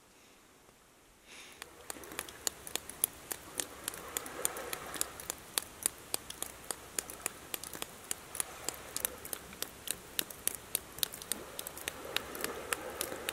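Water dripping off a wet rock face: a quick, irregular patter of drops, three or four a second, starting about a second in.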